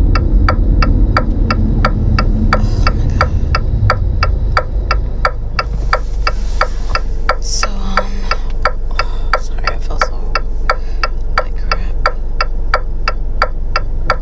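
Car turn-signal indicator clicking steadily, about three clicks a second, over the low rumble of the engine and road inside the car.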